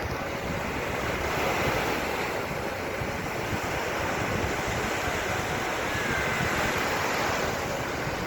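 Sea surf washing onto a beach, a steady rush of breaking waves that swells slightly about a second and a half in, with wind buffeting the microphone.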